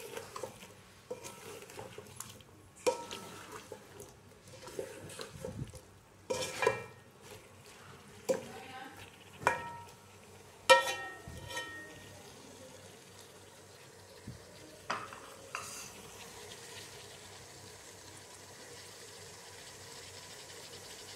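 A spoon stirring chopped kadu pieces in an aluminium pot, knocking against the pot several times with short ringing clanks. From about halfway on only a steady faint hiss of the pieces cooking remains.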